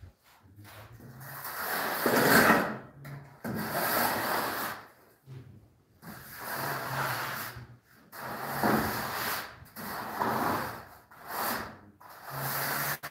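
A straightedge scraped and dragged across a sand-and-cement screed bed to level the floor before tiling, giving a gritty rubbing in repeated strokes that each last about a second or two.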